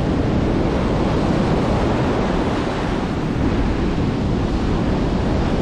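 Ocean surf washing up a sandy beach in a steady, even rush, mixed with wind buffeting the microphone.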